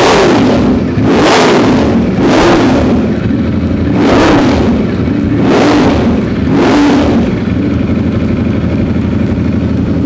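Ducati Streetfighter V4S's V4 engine, fitted with a replacement muffler, revved in six quick throttle blips, each rising and falling back, then settling to a steady idle about seven seconds in.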